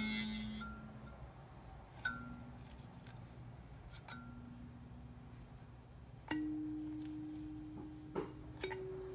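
Seven-key kalimba (thumb piano) with metal tines, single keys plucked one at a time about two seconds apart, each note ringing out and fading. The first three notes are low; the last two step up in pitch, with a light click of the thumb on the tines just before the final note.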